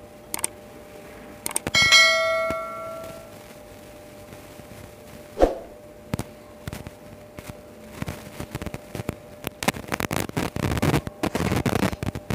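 A dish clinks once with a clear ringing tone that fades over about a second and a half, and a dull knock follows a few seconds later. From about eight seconds in come fast, wet crackling and squishing sounds of rice and fish curry being mixed by hand on a plate.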